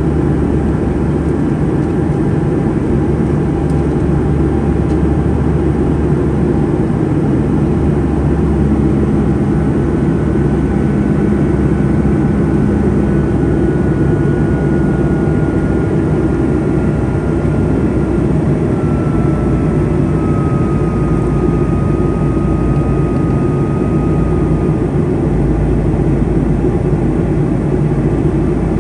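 Steady cabin noise of a Boeing 757-200 in flight, heard inside the cabin beside the wing: a constant engine drone and airflow. A faint high whine slowly falls in pitch through the middle.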